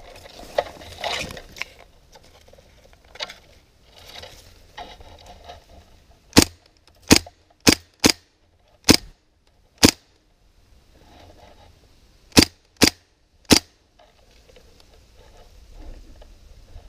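Airsoft gun firing single shots: six sharp cracks a little under a second apart, a pause, then three more, with rustling gear and movement before the shooting.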